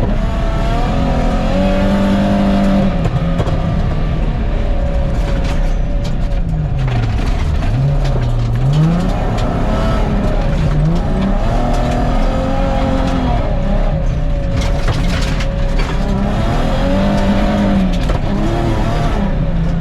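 Nissan 350Z drift car's engine revving up and falling back again and again as it is driven hard on a gravel rally stage, over a constant rumble of tyres and gravel.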